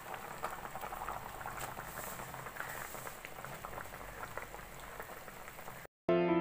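Fish curry bubbling at a boil in an aluminium pot, a steady hiss with a dense patter of small pops. Near the end it cuts off abruptly and piano music starts.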